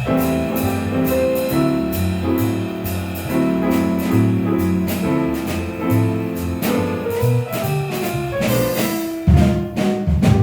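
Jazz trio of piano, bass and drum kit playing a swing tune: piano chords and melody over a bass line, with steady, evenly spaced cymbal strokes. Louder drum hits come in near the end.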